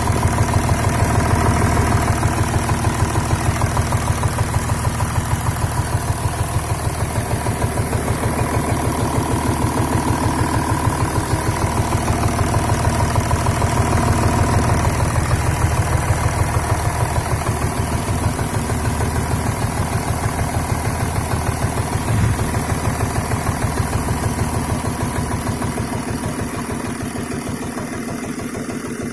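Volkswagen Touareg's 3.0 V6 TDI (CASA) diesel engine idling unevenly with a regular knock. It comes with body vibration and loss of power, and the cause is still undiagnosed.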